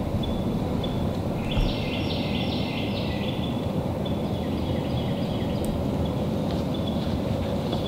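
Daybreak woodland ambience: a songbird sings a phrase of about four repeated high notes about a second and a half in, over a thin repeated high chip from another bird and a steady low background rumble. A soft low thump sounds near the start of the song.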